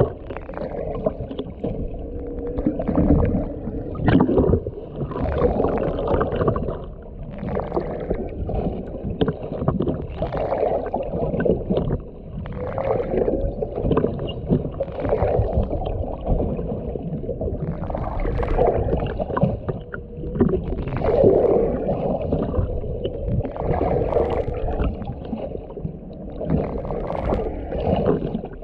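Humpback whale song heard underwater: a string of low, wavering calls repeating every second or two over a steady wash of water noise.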